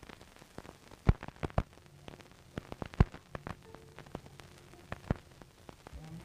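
Crackling surface noise of a worn old film soundtrack, scattered with sharp pops, the loudest about a second in and three seconds in. Faint held music notes come in around the middle.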